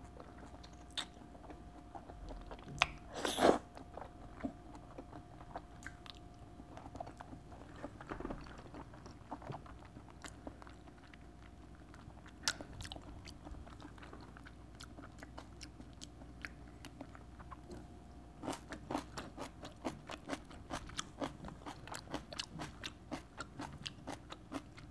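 Close-miked eating sounds of raw salmon and raw paprika: soft chewing with scattered wet clicks, then a dense run of crisp crunches over the last six seconds or so.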